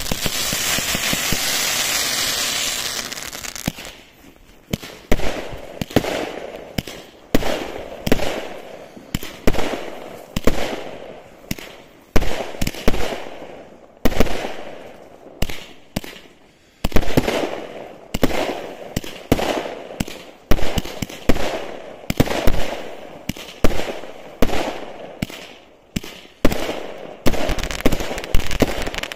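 Consumer fireworks cake firing: a few seconds of steady hissing as a sparking shot rises, then a long run of launches and aerial bursts, sharp bangs about one to two a second, each trailing off.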